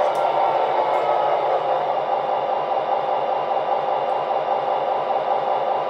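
MTH Premier FT diesel model locomotives running, their onboard diesel-engine sound playing as a steady rumble, with a regular low pulse underneath.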